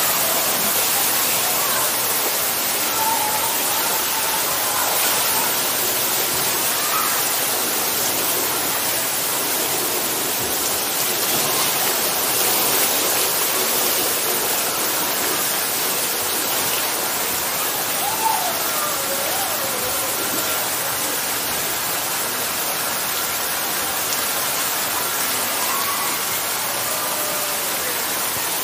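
Steady rain and running water: an even hiss with no breaks.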